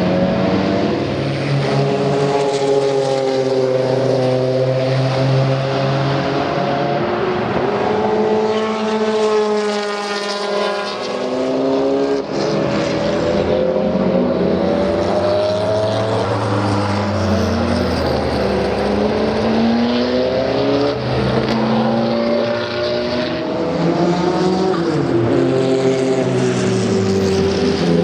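Porsche 962 Group C race car's turbocharged flat-six at racing speed. The engine revs up through the gears and drops in pitch again on lifting off and braking for corners, again and again as the car goes round.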